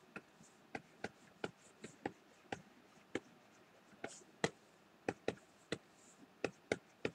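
Stylus tapping on a graphics tablet while painting: an irregular run of sharp little clicks, about two or three a second.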